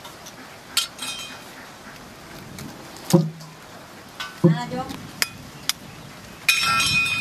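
Eggs being cracked against the edge of a metal knife blade over a steel plate: a few sharp taps and clinks, seconds apart, the loudest about three seconds in. Near the end there is a louder clatter with a ringing metallic note.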